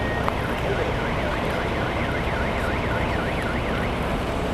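A siren yelping, its pitch sweeping rapidly up and down about three times a second, over a steady rush of wind and traffic noise; the siren stops shortly before the end.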